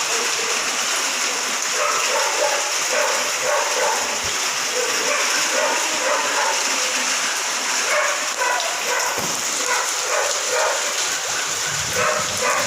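Steady rain hiss, with a dog barking again and again through it.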